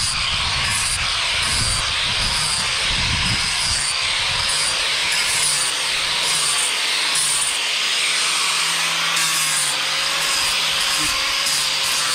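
Handheld angle grinder with an abrasive disc running steadily and sanding across the face of a fir board, a constant high whine over the rasp of the disc on the wood.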